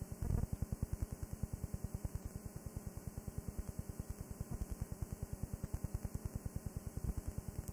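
Low electrical buzz pulsing evenly about ten times a second, with a faint hiss and a brief louder burst about a third of a second in: line noise from the playback after the programme has ended, with no programme sound.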